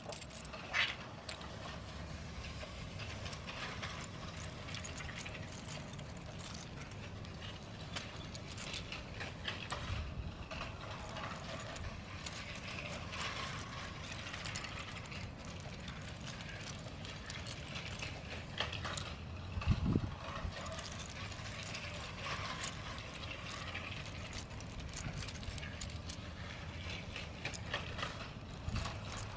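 Motorised Lego trains running on plastic track: a steady mechanical rattle of gears and wheels with many small irregular clicks. A single louder low thump comes about two-thirds of the way through.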